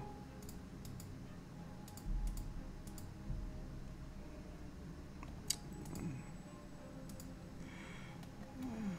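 Scattered clicks of a computer mouse and keyboard keys being pressed, a dozen or so separate clicks at uneven intervals over a faint steady background.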